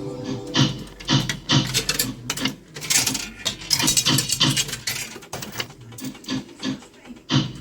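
Fruit machine being played: a run of short clattering, coin-like clicks at about two a second, busier and brighter in the middle.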